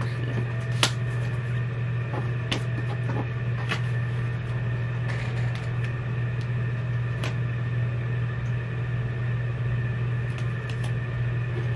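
A steady low mechanical hum with a few faint steady higher tones, and scattered light clicks and taps over it, the sharpest about a second in.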